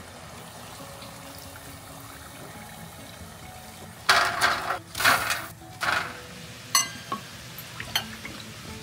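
Chicken feet deep-frying, the hot oil bubbling steadily in a stainless steel pot. About four seconds in, a metal skimmer of fried feet is emptied onto a wire cooling rack with a run of loud scraping and clattering, followed by a few sharp metal clinks, one of them ringing.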